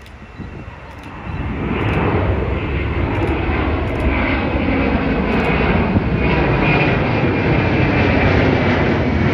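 Airbus A300-600F freighter's twin turbofan engines at takeoff power on climb-out. The jet noise swells about a second in and then holds loud and steady, strong in the low end with a rushing hiss above.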